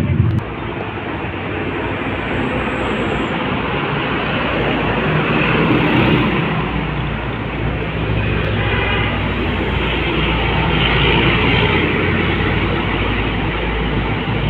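Busy road traffic: motorcycles and diesel trucks running past, with tyre noise and a steady low engine rumble.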